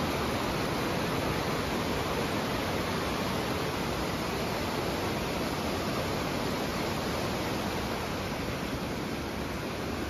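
Steady rush of water from a stream and waterfall below, growing slightly fainter near the end.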